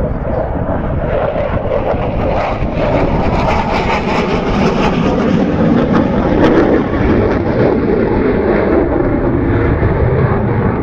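Military fighter jet passing overhead: a loud, steady jet-engine roar that swells about two seconds in and holds.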